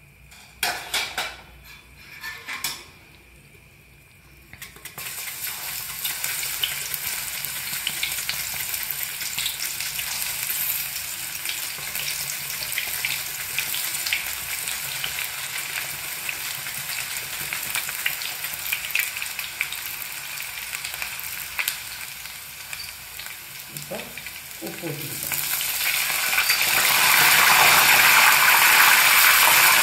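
Raw nendran banana slices deep-frying in hot oil in a kadai: a few metal clinks, then steady sizzling once the slices go in. The sizzling grows much louder near the end.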